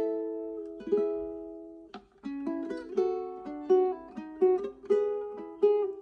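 Solo ukulele played fingerstyle. A chord rings out and fades for about two seconds, then a melody of quick plucked single notes follows over ringing lower strings.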